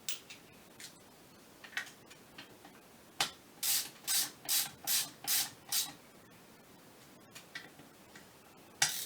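A sharp click, then six short rubbing strokes at about two a second, from hand work on a clutch actuator on the workbench.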